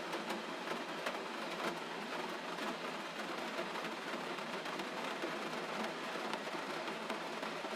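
Gentle rain falling: a steady, even hiss with faint scattered drop ticks.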